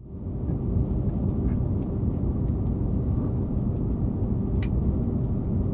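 Steady low rumble of a Renfe Class 120 (CAF Alvia) train running, heard inside the passenger cabin, with a few faint ticks and rattles over it.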